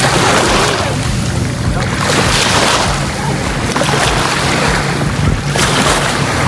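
Surf washing in, swelling and falling every second or two, with wind rumbling on the microphone.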